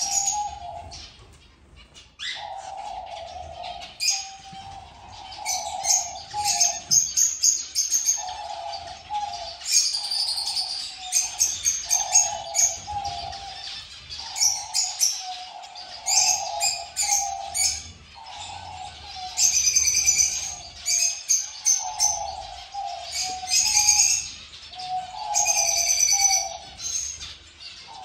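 A mixed aviary of cockatiels, finches and small doves: quick high chirps and calls come in clusters over a low cooing call repeated about once a second.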